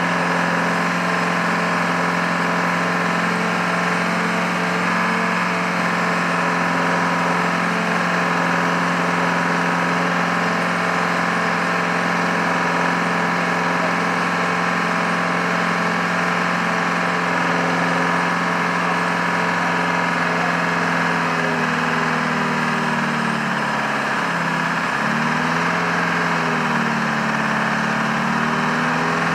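An Airbus A320 being moved by a tow tug: a steady engine drone with several held tones and a whine above them. The lower tones waver and dip from about two-thirds of the way in.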